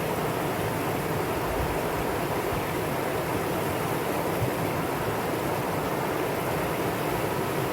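Mountain stream water rushing steadily over rocks, a constant even rush without breaks.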